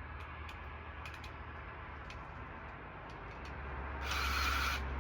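Power drill run briefly, for just under a second about four seconds in, after a few small clicks of handling.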